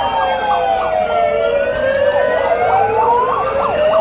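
Emergency vehicle siren wailing in slow falling-then-rising sweeps, with a second siren's quicker yelping sweeps overlapping.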